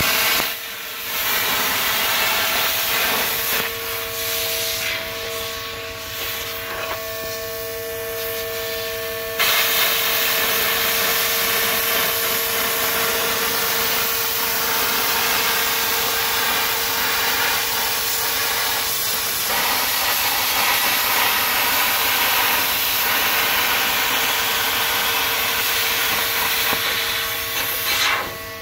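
Stahlwerk plasma cutter cutting through thin steel sheet: a steady, loud hiss of the arc and air jet with a steady hum underneath. It dips briefly about a second in, gets louder about nine seconds in, and stops just before the end as the cut is finished.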